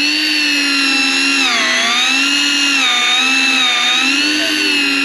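Daiwa electric deep-drop reel's motor whining loudly as it winds in line with a fish on. Its pitch dips and recovers every second or so as the load on the line changes, with the deepest dip about one and a half seconds in.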